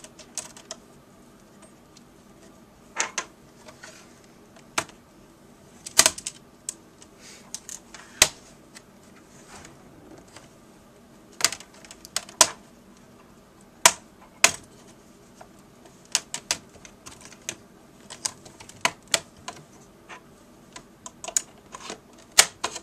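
Plastic retaining clips of an Acer Aspire laptop's screen bezel cracking and snapping loose as the bezel is pried off with a flathead screwdriver. Irregular sharp clicks come throughout, with a louder crack every few seconds.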